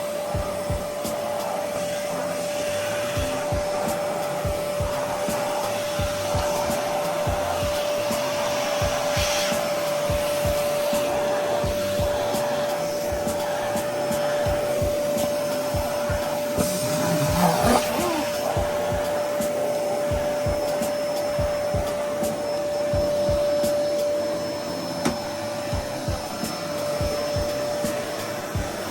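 MC-CL603 vacuum cleaner running with a steady whine over a loud hiss of rushing air, with irregular low knocks throughout. The whine stops shortly before the end.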